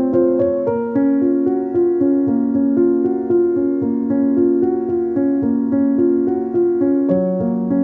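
Background piano music: held chords that change about once a second.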